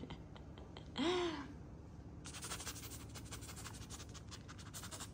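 A short breathy sigh-like voice sound about a second in. Then, from about two seconds in, a dense run of fine rapid scratching and rustling.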